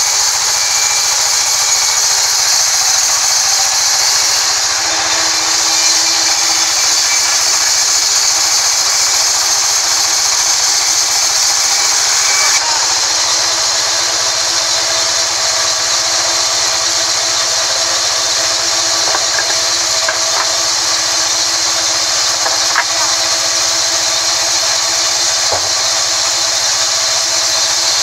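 Large sawmill band saw running steadily and cutting lengthwise through a mahogany log, with a continuous high-pitched saw noise as the blade passes through the wood.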